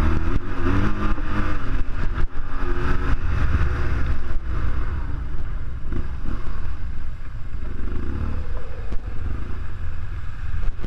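BMW R1200GS Adventure's boxer-twin engine running under the rider, its pitch rising and falling as it is revved over the first few seconds. It then settles lower and quieter as the bike slows.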